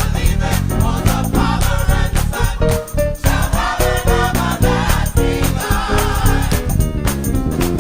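Gospel choir singing with a full band: bass, drums and keyboard under the voices, with a steady beat.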